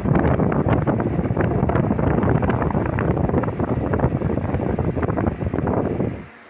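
Air blast from a Ventisol MX VOP 60 wall fan running at its maximum speed buffeting the microphone: a loud, rough, fluttering rush. It drops away suddenly near the end, leaving a faint steady hum.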